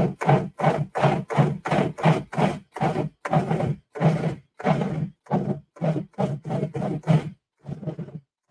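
Food processor pulsed in quick short bursts, about two to three a second, the blade chopping and mixing a thick granola mixture of ground nuts, oats and fruit paste until it starts to clump into a ball. The pulses space out near the end.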